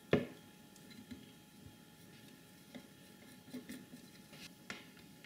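Cotton swabs rubbing and dabbing on a circuit board, making faint scratchy taps. One sharper click comes just after the start.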